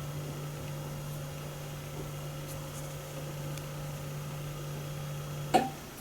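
A steady low electrical hum with faint higher whine tones, cut off by a sharp click about five and a half seconds in.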